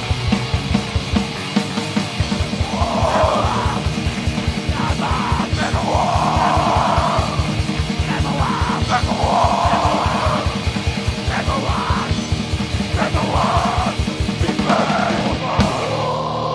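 Heavy metal band playing live: fast, dense kick-drum strokes drive the song, with shouted vocal lines coming in about five times over the top.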